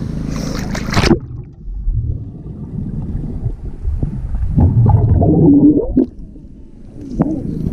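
A splash about a second in, then the muffled sound of a camera's microphone underwater in a swimming pool: low rumbling and gurgling of bubbles as a child plunges in and swims past, all the high sound cut away by the water.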